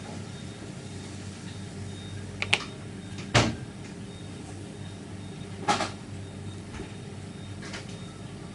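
Handling noises from an aluminium airsoft Moscart shell being worked on a tabletop: a few short metallic clicks and knocks, a double click about two and a half seconds in, the loudest knock just after, another around six seconds, over a steady low hum.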